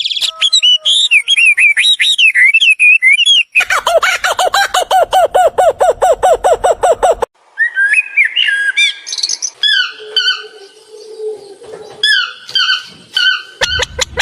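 Several different birds calling one after another, with abrupt changes between them: first warbling chirps, then a rapid call of about eight notes a second, then short repeated whistled phrases, and another rapid pulsed call starting near the end.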